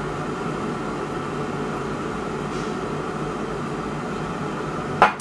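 Steady mechanical drone of an appliance running, with one sharp click about five seconds in, after which the drone is quieter.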